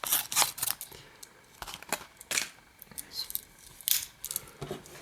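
Small metal scissors and fold-out tools of a Victorinox Huntsman pocket knife being handled: scattered light metallic clicks and snips, the sharpest about two and a half seconds in.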